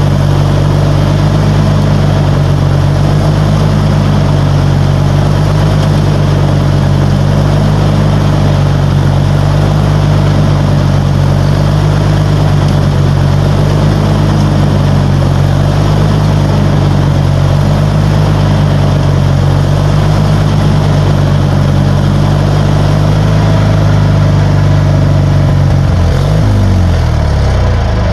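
Riding lawnmower engine running steadily with a front tine tiller mounted on it. Near the end its pitch drops as the engine slows.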